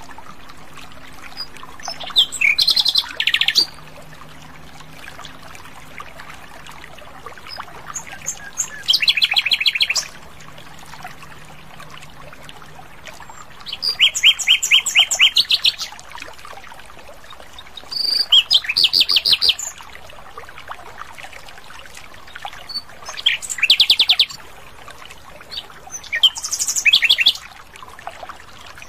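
Common nightingale singing: six phrases of one to two seconds each, every phrase a fast run of repeated notes, with pauses of a few seconds between them.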